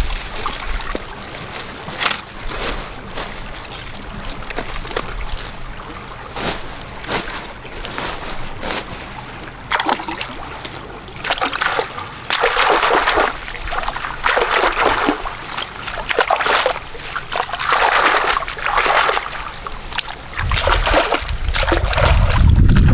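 River water splashing and sloshing as bundles of taro stalks are rinsed and rubbed by hand in a shallow stream: scattered small splashes at first, then a run of repeated swishes every second or two. A low rumble comes in near the end.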